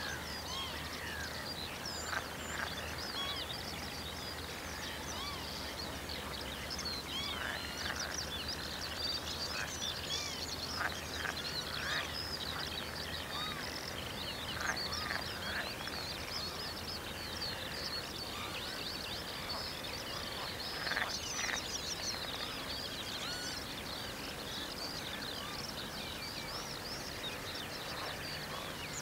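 Many birds calling at once: a dense, overlapping mix of short, high chirps and calls.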